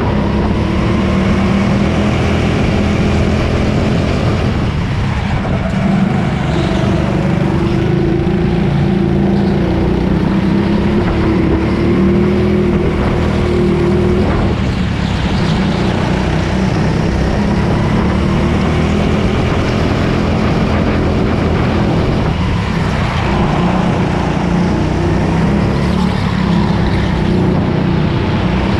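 Go-kart engine running steadily at speed, heard from an onboard camera with a constant noisy rush. Its note dips briefly about five seconds in and again a little past twenty seconds.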